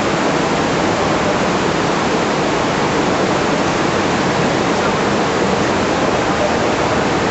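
Flash floodwater rushing over the ground: a loud, steady, unbroken rush of water.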